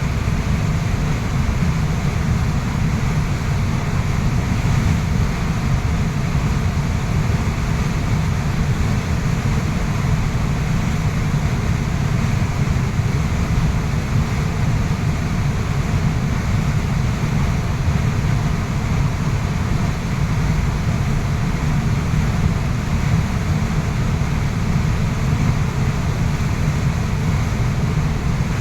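Waterfall's falling water rushing steadily: a deep, even rush without breaks.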